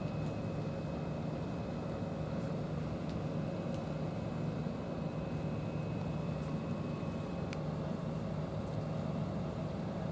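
Steady low mechanical drone, like a motor running nearby, with a faint steady high whine that stops about seven and a half seconds in.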